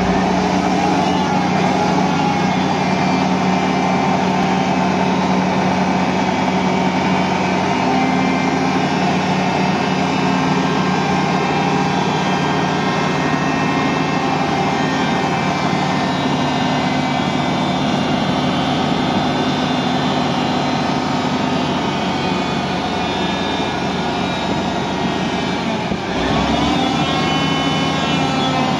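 Diesel engine of a Cat Kress K10 pot carrier running steadily. About three seconds before the end its pitch dips briefly and comes back up.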